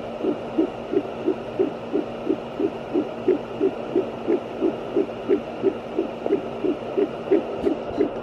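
Fetal heartbeat through a handheld fetal Doppler's speaker: fast, even pulses, about three a second, over the Doppler's steady hum and hiss.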